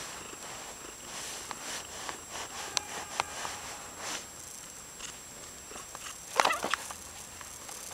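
A cat pawing and brushing against the camera and its strap right at the microphone: scattered rustles and light knocks, with one louder scuffle about six and a half seconds in.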